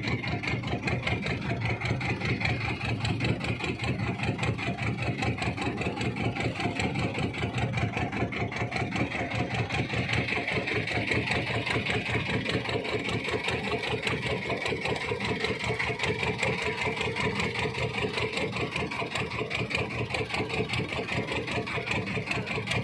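Small fishing boat's engine running steadily at an even speed, a fast regular chugging that holds constant throughout.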